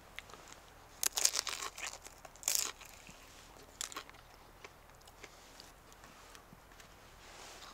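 Biting into and chewing a crispy fried egg roll: a crackly crunch about a second in, a second one shortly after, then fainter crunches as it is chewed.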